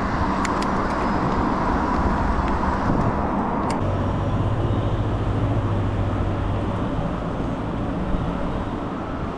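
Steady road traffic noise, with the low hum of a vehicle engine standing out from about four to seven seconds in and a few light clicks.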